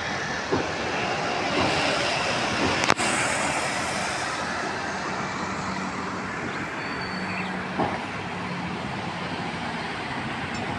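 Steady road traffic noise from passing vehicles, with one sharp click about three seconds in.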